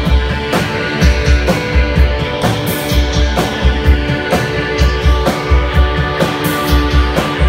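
Rock music from a band: guitar chords held over a steady drum-kit beat with cymbals.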